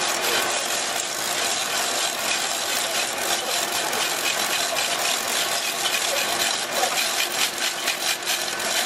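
Chain hoist being hauled to lift a pump, its chain rattling and clicking in quick irregular ticks over a steady noisy background; the ticking is busiest near the end.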